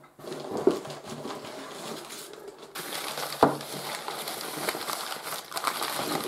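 Brown packing paper being unwrapped and crumpled by hand, a continuous crackling and rustling, with a single sharp knock about three and a half seconds in.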